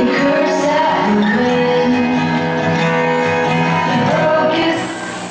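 A girl singing into a handheld microphone over backing music, holding long notes. A steady high-pitched whine comes in near the end.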